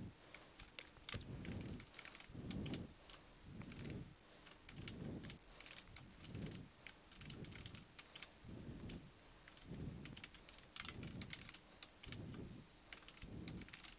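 Faint typing on a computer keyboard: quick, irregular keystroke clicks as code is entered. Beneath it a soft low sound comes back about once a second.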